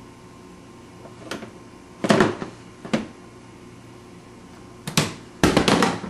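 A toddler knocking and rattling things at a dishwasher: several sharp hard clatters, single ones at first, then a quick run of them near the end.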